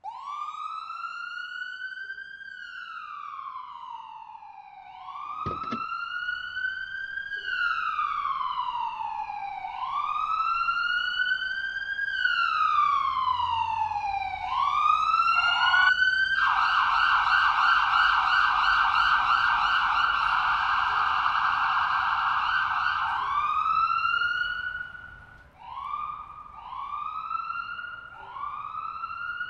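Ambulance siren wailing in slow rising and falling sweeps, about one every two and a half seconds. About halfway through it switches to a rapid warbling yelp for several seconds, then goes back to shorter, quicker wails.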